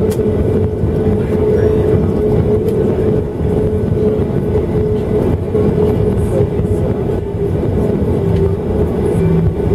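Cabin noise of a Boeing 737-700 taxiing after landing: its CFM56 engines running at low power with a steady tone over a low rumble from the landing gear rolling on the pavement.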